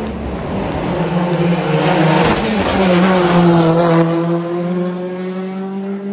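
Rally car passing at speed. The engine grows louder as it comes by, its note drops about two and a half seconds in as it goes past, then holds steady as the car pulls away up the road.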